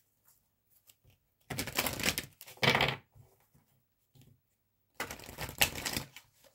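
A deck of tarot cards being shuffled or riffled by hand: two bursts of quick papery clicking and flicking, about a second and a half each, with a pause between.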